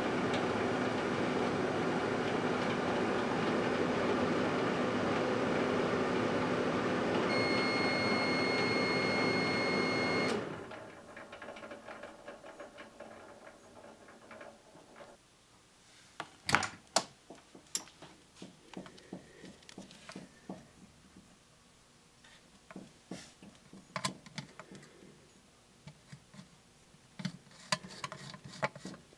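Microwave oven running with a steady hum, joined by a steady high tone about seven seconds in; both cut off abruptly about ten seconds in, followed by scattered quiet clicks and knocks.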